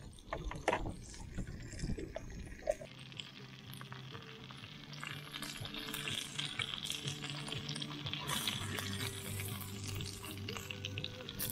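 Crumbed barramundi sizzling in oil in a frying pan, with a few clicks of a utensil against the pan in the first seconds as the fish is turned and lifted. Quiet background music comes in about three seconds in.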